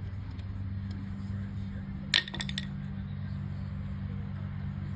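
A steady low hum, with a sharp metallic clink about two seconds in, followed by a few quick light clicks as small metal screw hardware is set down or dropped.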